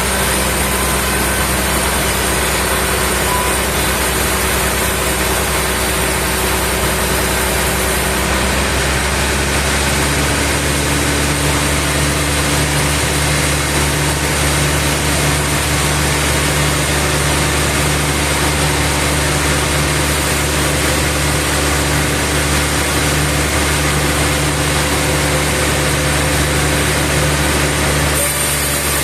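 Sawmill machinery running with a steady engine hum. The pitch of the hum shifts about nine seconds in and changes again near the end.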